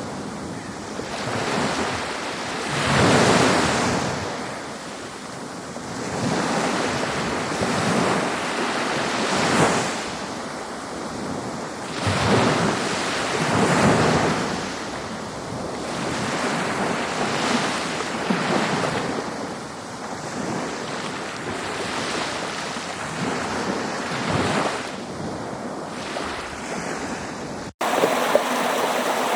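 Ocean waves washing ashore, the surf swelling and easing about every three seconds. Near the end it cuts off suddenly and a steady rushing stream takes over.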